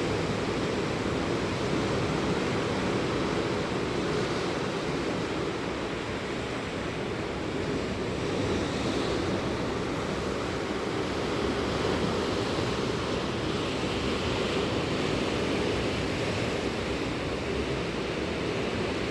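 Ocean waves breaking and washing in, a steady rushing surf that swells and eases every few seconds.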